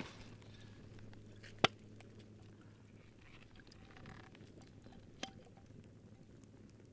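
Faint crackling of a small wood campfire, with one sharp snap about a second and a half in. Near the end a light clink as a glass bottle is handled.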